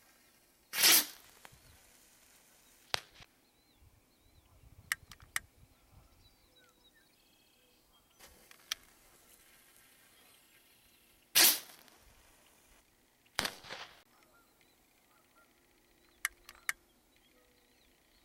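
Black Cat Silver Fox bottle rockets fired from a homemade PVC-pipe launcher. Twice, a short loud whoosh as a rocket leaves the tube, about a second in and again past the middle, each followed about two seconds later by a sharp pop. A few fainter clicks come in between.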